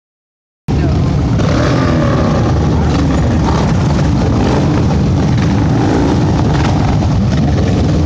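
A group of cruiser motorcycles riding slowly past in a pack, engines rumbling with rising and falling throttle. The sound cuts in suddenly less than a second in.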